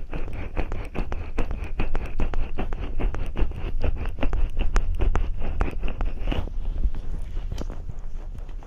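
Fingers rubbing and brushing a powdered microphone ear in quick, scratchy strokes, several a second, over a low rumble of handling noise. The strokes thin out about six and a half seconds in.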